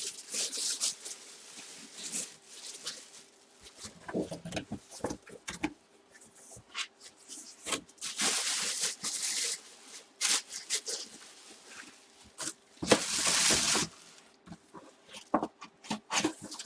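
Plastic packing being handled: irregular crinkling and rustling, with a few light knocks.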